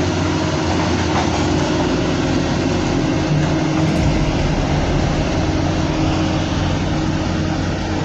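Large hydraulic excavator's diesel engine running steadily under load.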